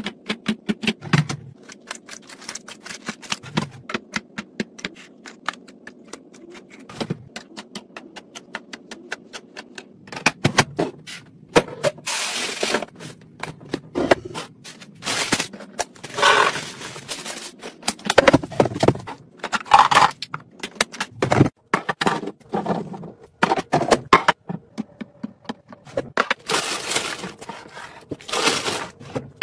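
Hard plastic being handled: quick tapping and clacking as bottles and containers are set into clear plastic organizer bins, then louder scraping, rattling and crackling of plastic containers and dry food.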